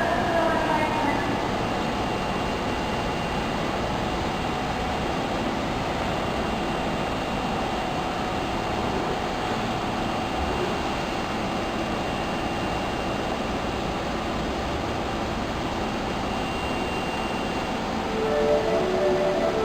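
Osaka Metro Tanimachi Line subway train running, a steady, even rumble of wheels and motors. A gliding motor whine fades out at the start, and several steady tones come in near the end.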